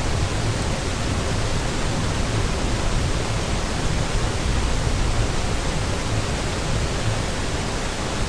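Steady, even hiss with a low rumble beneath it, the recording's constant background noise; no speech.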